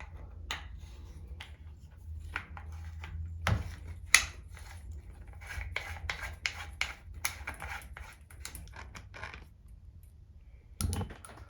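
Shower hose and shower head fittings handled and screwed together by hand: irregular scratching and rubbing with small clicks of the parts and threads.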